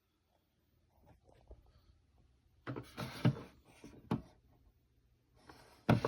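Irregular handling noises: faint clicks and rustling with a few louder knocks, the loudest near the end.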